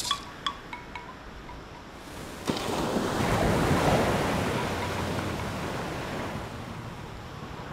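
Ocean surf sound effect: a few faint ticks, then about two and a half seconds in a rush of wave noise swells up, peaks a second or so later and slowly dies away.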